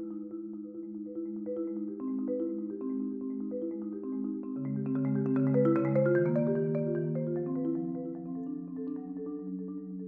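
Concert marimba played with four mallets, sustaining overlapping rolled notes and chords. A lower note enters about halfway through as the sound swells to its loudest, then it softens again.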